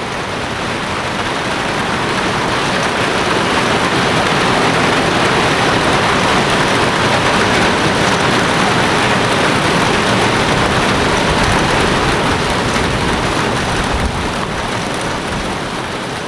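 Heavy rain driven by strong wind, a loud steady rushing noise that builds over the first few seconds and eases near the end.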